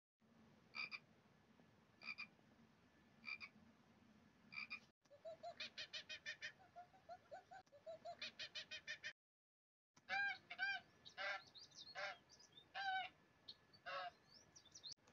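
A string of short animal calls from different animals. First come single chirps about a second and a half apart, then a fast run of short pulsed calls. After a brief break there are louder, arched calls, several in a row.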